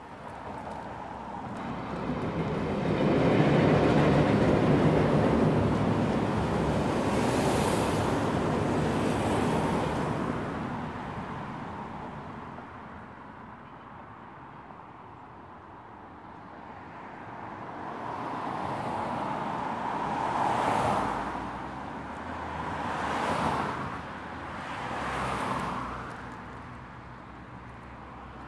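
Road traffic: vehicles passing one after another. A long, loud pass comes a few seconds in, and three shorter passes come in the second half.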